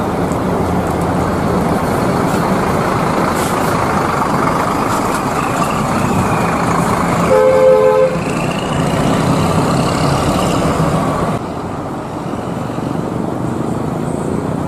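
Intercity coaches' diesel engines running, with a short two-tone horn blast about seven seconds in.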